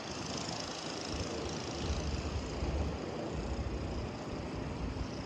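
Steady outdoor street noise with wind buffeting the microphone, the low rumble swelling between about one and three and a half seconds in.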